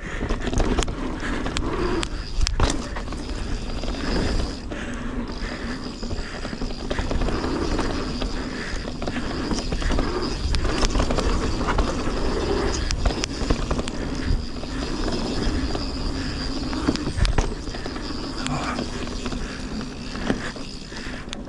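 Mountain bike riding down a dirt forest singletrack: tyres rolling over the trail, with frequent short knocks and rattles from the bike over bumps and a steady low rumble.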